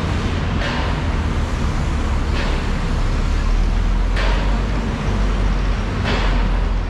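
Roadside traffic noise: a steady low rumble of road vehicles, a bus among them, passing close by, with short hissing swells roughly every two seconds.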